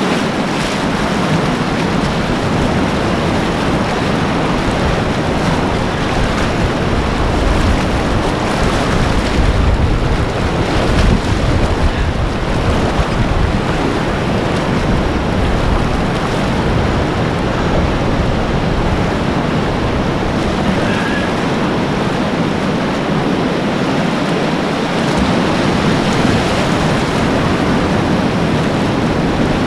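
Class 4 whitewater rapid rushing loudly and steadily around a kayak, heard from right on the water, with a deep low rumble swelling about a third of the way in.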